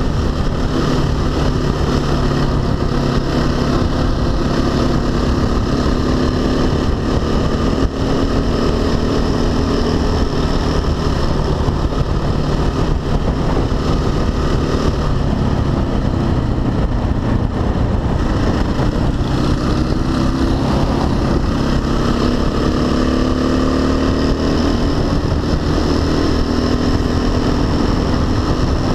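Dirt bike engine running under way at speed, its pitch rising and falling with the throttle, with wind rushing over the microphone.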